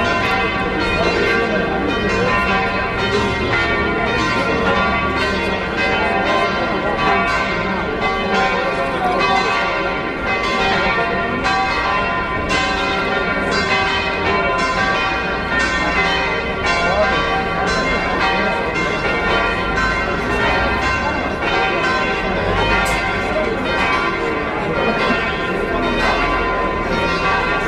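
Church bells ringing continuously, many bells struck over and over so their tones overlap, rung at the end of a funeral Mass. Crowd voices are heard underneath.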